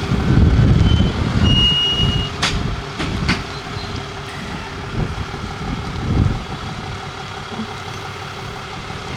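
Truck engine running steadily, with heavy low rumble for the first couple of seconds. A short high beep comes about two seconds in, followed by two sharp clicks.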